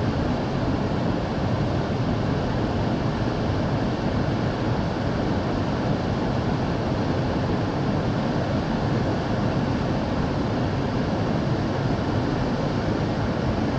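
Waterfall: falling water rushing with a steady, even noise that never changes.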